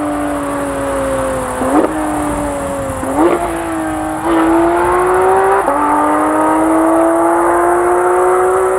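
Porsche GT3's naturally aspirated 4.0-litre flat-six engine running at high revs under hard driving. Its note sags a little, jolts briefly twice, then climbs steadily with a couple of small jumps in pitch.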